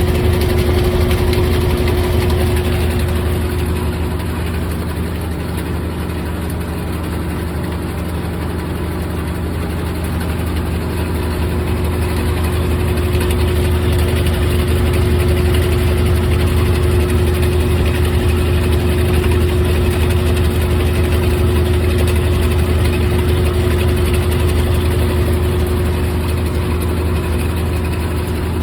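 GE top-load washing machine running, a steady motor hum with a low rumble that eases a few seconds in and slowly builds back.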